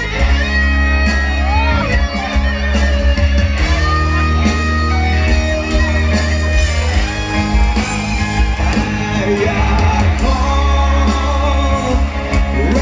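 Rock band playing an instrumental break: electric guitar lead with held and bending notes over bass and drums.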